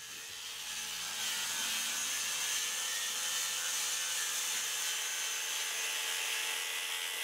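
Handheld power sander with a sanding disc running across a stone surface, giving a steady rushing, rubbing sound over an even motor tone. It builds up over the first second, then holds steady.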